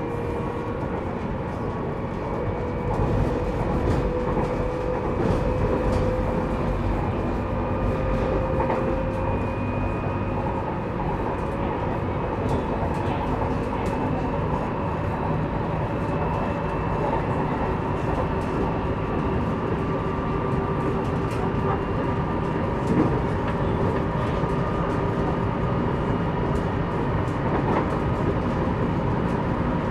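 A CAF Civia electric multiple unit under way, heard from inside: the whine of its Siemens traction converters gives several steady tones that slowly rise in pitch over the rumble of the running gear.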